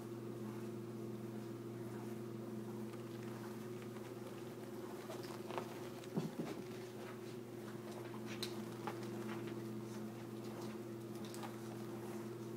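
Small dog scampering and playing on a fabric couch: scattered light taps and scuffles of paws and claws, with a short cluster of louder thumps about six seconds in, over a steady low hum.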